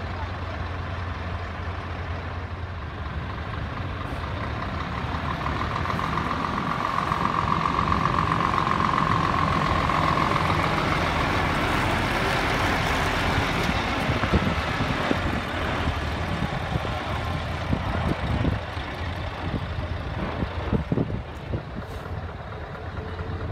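Scania tractor unit's diesel engine running as the truck drives slowly past at close range, growing louder as it comes alongside and easing off as it moves away, with a steady high whine for a few seconds early on.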